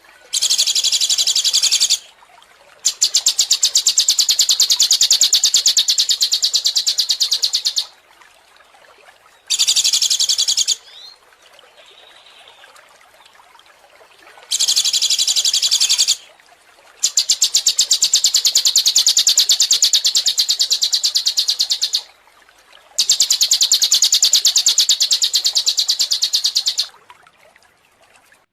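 A songbird sings very fast, rattling high trills in six bursts. The longest bursts run about five seconds, separated by short pauses.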